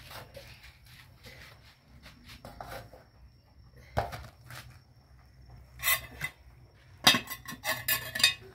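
Metal utensils knocking and scraping against an aluminium cooking pot, with a sharp knock about four seconds in. Near the end comes a loud burst of metal clattering as the aluminium lid goes onto the pot.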